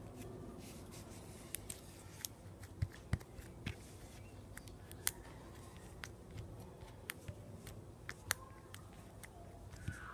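Purple slime, softened in hot water, being stretched and kneaded by hand, giving faint, irregular small clicks and pops.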